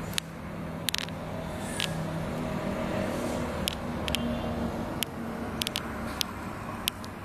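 A motor vehicle's engine running steadily, its hum swelling slightly about two to three seconds in, with sharp clicks and taps scattered throughout.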